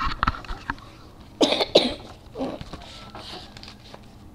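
A person coughing: two short coughs about one and a half seconds in, then a fainter one a moment later.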